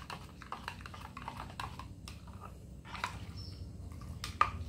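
A metal spoon stirring a liquid cleaning mixture in a plastic measuring jug, clicking irregularly against the sides, with a sharper click near the end.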